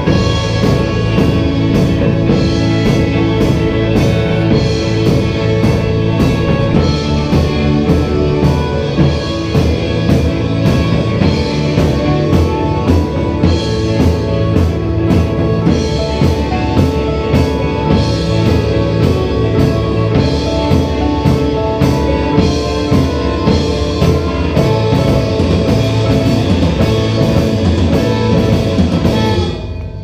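A live rock band playing together: drum kit, electric guitars and keyboards over a steady beat. The band stops playing near the end.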